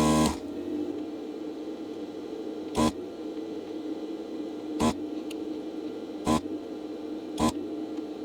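Desoldering station's vacuum pump buzzing in short bursts as solder is sucked out of circuit-board holes: one longer burst at the start, then four brief ones one to two seconds apart, over a steady low hum.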